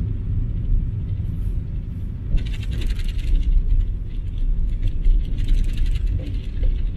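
Car interior road noise: a steady low rumble from the engine and tyres while driving slowly. Bursts of light rattling come about two and a half seconds in and again around five seconds.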